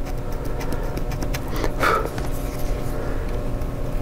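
Light scratchy rubbing of an isopropyl alcohol swab wiping old thermal paste off a laptop CPU die, over a steady low hum, with a brief louder sound about two seconds in.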